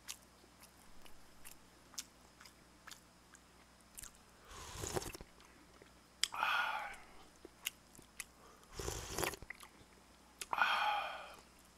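Close-miked eating: a person chewing with many small wet clicks, and four louder breathy rushes of slurping and breathing between bites, a couple of seconds apart.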